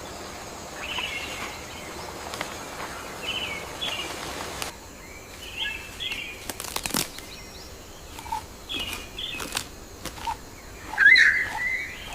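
Forest ambience: birds calling in short, repeated chirps over a steady background hiss, with a couple of sharp clicks near the middle and the loudest call about eleven seconds in.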